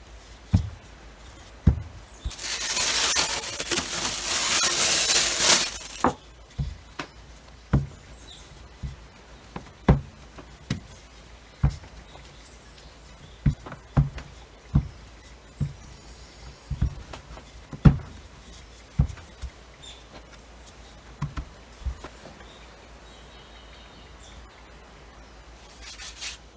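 Wooden rolling pin rolling out croissant dough on a wooden cutting board, with dull knocks roughly once a second. A loud rushing hiss lasts about four seconds, starting a couple of seconds in.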